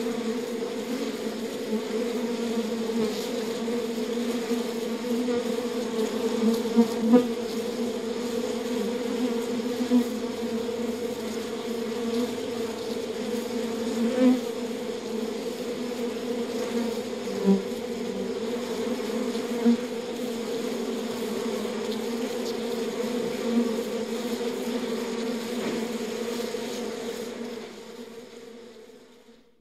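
Swarm of bees at a beehive buzzing in a steady, dense drone, with individual bees swelling louder as they pass close now and then. The buzz fades out near the end.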